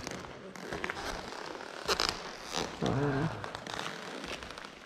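Scattered crunches, clicks and scrapes of boots and hands shifting on gritty debris over a concrete floor, with a sharper cluster of clicks about two seconds in.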